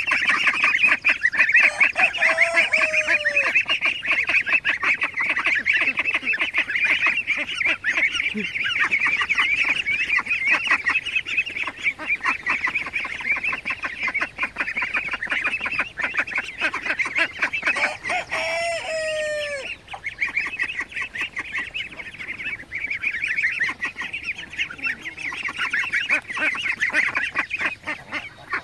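A flock of young Ancona and Golden Cascade ducks calling all at once: a dense, continuous chorus of high peeping calls, with a louder call dropping in pitch about two seconds in and again a little past the middle. They are at the age when their voices are used to sex them.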